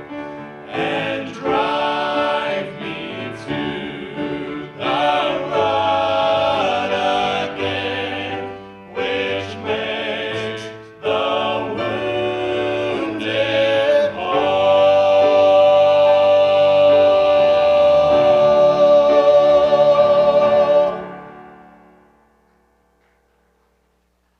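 Small vocal group singing a gospel song with instrumental accompaniment, ending on a long held final chord that dies away near the end.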